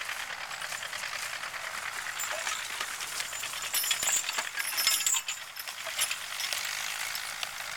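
Metal harness hardware and trace chains on a team of draft horses jingling and clinking as the team pulls a plow, with a louder burst of clinks about halfway through.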